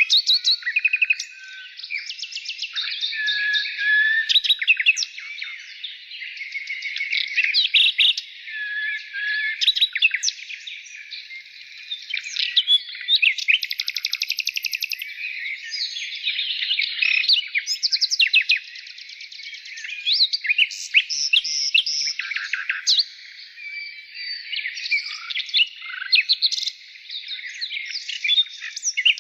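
Songbirds chirping and singing in a dense, unbroken chorus of quick high chirps, short whistles and rapid trills that overlap one another.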